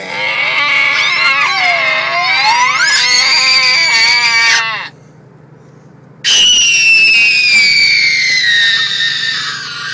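A person's shrill, high-pitched screech, made on purpose as 'the most annoying sound in the world': two long drawn-out cries, the first wavering up and down, the second sliding slowly down in pitch, with a short pause between them.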